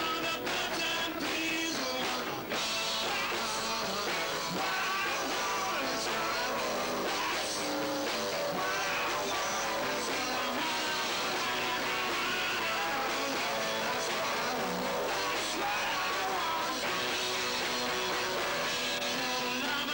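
Live rock band playing, with electric guitars and a man singing lead vocal.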